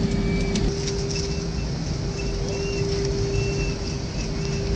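Airliner engine noise heard inside the cabin: a continuous low rumble with a steady hum. A few short high tones come and go over it.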